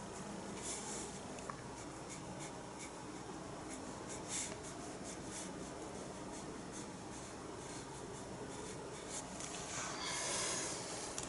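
Soft, faint swishes of a paintbrush stroking acrylic paint on, in short strokes, with a longer, slightly louder stroke near the end.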